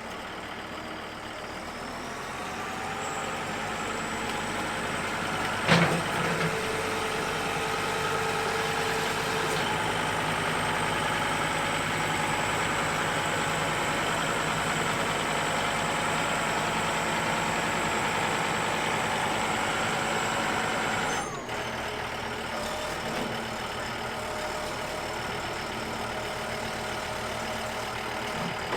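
A two-wheel-drive John Deere tractor's engine is running at working throttle while its front loader scrapes mud. The engine rises in speed over the first few seconds. There is a single loud clank about six seconds in, then a steady whine for a few seconds. The engine drops back suddenly about two-thirds of the way through.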